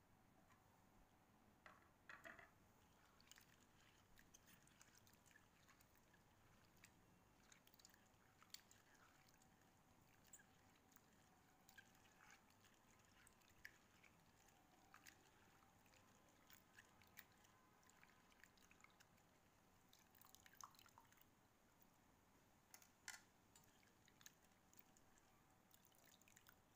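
Faint splashing, sloshing and dripping of water as hands stir and rinse salted bitter gourd slices in a steel bowl, with scattered small splashes throughout.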